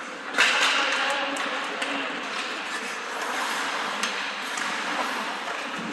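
Ice hockey play on the rink: one sharp, loud crack of a hockey puck impact about half a second in, then several lighter clacks of sticks and puck over a steady arena hubbub.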